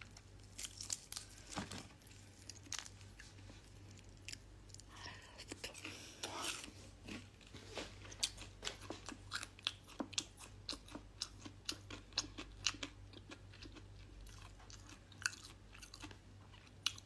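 Close-up chewing and eating: soft, irregular mouth clicks and smacks, with a faint low hum underneath.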